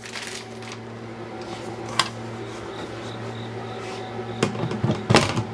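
Red acrylic front cover of a desktop laser engraver enclosure being handled and fitted into place: a sharp click about two seconds in and a couple of knocks near the end, over a steady low electrical hum.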